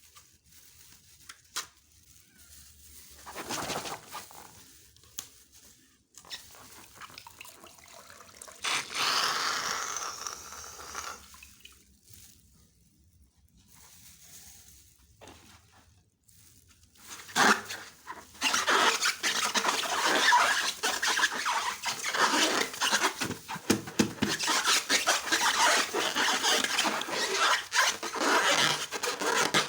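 Slime being handled: sticky, wet squishing and scraping noises, in short scattered bursts at first, with a louder stretch a third of the way in. Then a dense, continuous crackly squelching from a little past halfway on.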